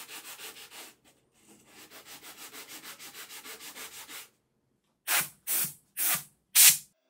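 Hand sanding with a sanding block over small stepped relief pieces on a panel: quick back-and-forth strokes at about five a second, with a short pause about a second in. Near the end come four slower, louder strokes about half a second apart.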